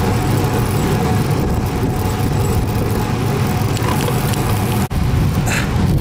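Strong wind buffeting the microphone of a camera riding on a moving road bike: a steady, heavy rumble that breaks off for an instant about five seconds in.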